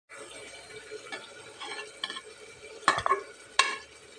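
Perforated metal ladle stirring and scooping cooked pea rice in an aluminium pressure cooker: a few light clinks, then sharper knocks of metal against the pot in the last second and a half.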